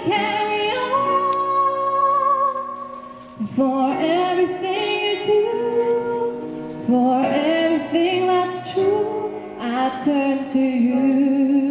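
A woman singing a slow ballad solo over instrumental accompaniment, with long held notes that waver in pitch and several phrases that start afresh about every three seconds.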